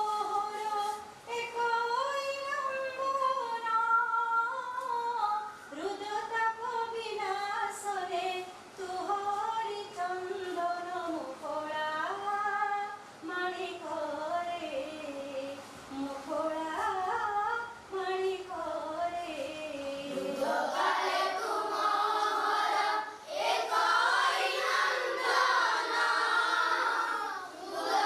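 A single high voice sings a slow, wavering melody; about twenty seconds in a chorus of voices joins and the singing becomes fuller and louder.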